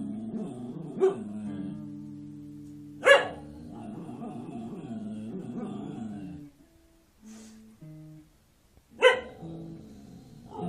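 A dog barks three times over background music: once about a second in, loudly about three seconds in, and loudly again near the end.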